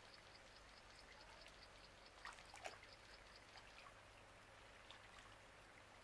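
Near silence: faint outdoor ambience, with a couple of faint short sounds about two and a half seconds in.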